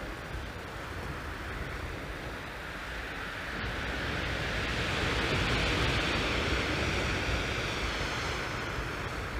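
Small waves breaking and washing up a steep shingle beach, swelling louder from about halfway through, with wind rumbling on the microphone.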